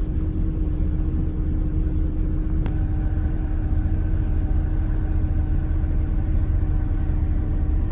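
Steady low rumble of a car engine heard from inside the car, with a single faint click between two and three seconds in.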